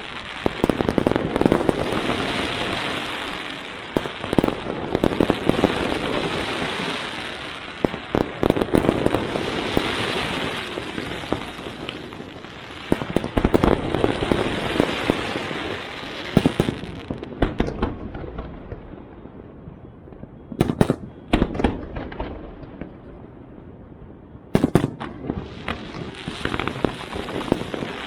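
Fireworks display: rapid bangs and dense crackling from bursting shells. It thins out about two-thirds of the way through to a few single bangs, then grows dense again near the end.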